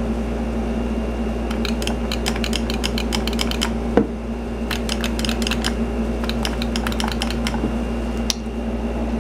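Two runs of rapid light clicking, like keys being tapped, each lasting two to three seconds, with a single knock between them and another near the end, over a steady electrical hum.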